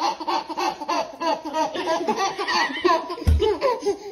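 Baby laughing in quick repeated bursts, set off by a smart speaker's fart sound. A single low thump comes a little after three seconds in.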